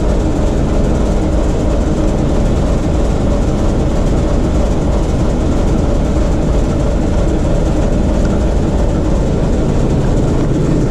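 Diesel locomotive's diesel engine running steadily under load into a water load rheostat, at about 80 kW, as it is run in after a major overhaul. The deep engine drone is heard from inside the locomotive's cab.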